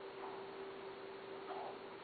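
Quiet room tone: a steady hum and hiss, with two faint short sounds, one just after the start and one about a second and a half in.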